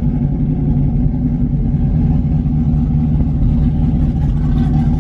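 Car engine idling steadily, heard from inside the cabin as a low, even drone.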